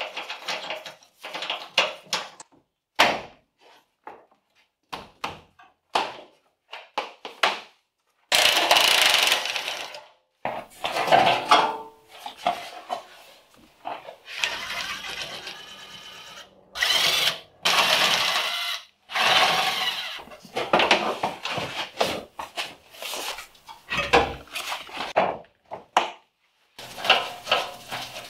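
A handheld power tool running in short bursts on bolts, together with hand-tool clicks and metal knocks, as a car's front fender is unbolted and taken off. The snippets start and stop abruptly, the longest burst of tool noise coming about eight seconds in.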